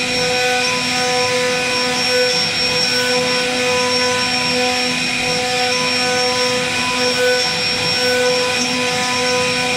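CNC router spindle running at speed with a steady whine while its fine carving bit cuts a wooden door panel, over a hiss from the cutting.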